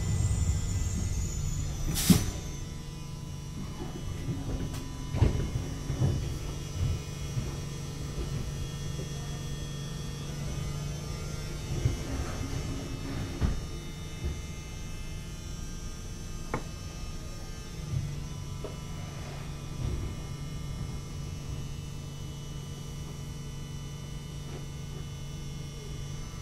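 Duewag B80C Stadtbahn light-rail car slowing to a halt, with a sharp click about two seconds in, then standing with a steady electrical hum from its onboard equipment and occasional clicks and knocks.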